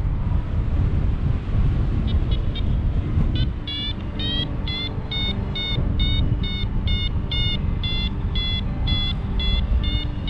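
Paragliding variometer beeping its climb tone: short high beeps begin about two seconds in, rise in pitch and quicken, then settle to about two a second, the sign that the glider is climbing in lift. Wind rushing over the microphone runs underneath.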